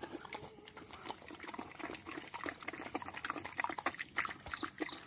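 A dog eating wet food out of a bucket: quick, irregular lapping and chewing sounds.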